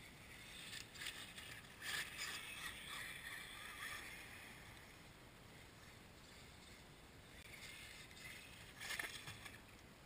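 Radio-controlled crawler truck driving through snow: a faint crunching, swishing noise of its tyres churning snow, with scattered knocks, louder about two seconds in and again near the end.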